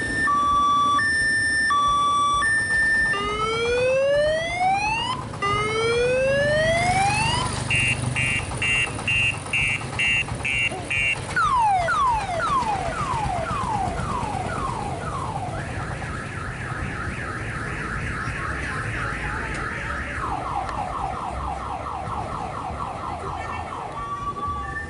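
Multi-tone electronic siren horn of an odong-odong tour train cycling through its patterns. It goes from a two-tone high-low beep into two rising whoops, a fast pulsing beep, a run of about seven falling chirps, then a fast high warble that drops to a lower warble, and comes back to the two-tone beep near the end.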